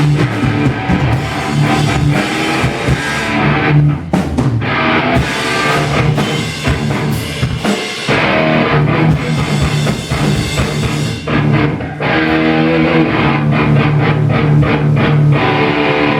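Live rock band playing at a sound check: guitar over a drum kit with bass drum, with a few brief breaks in the playing.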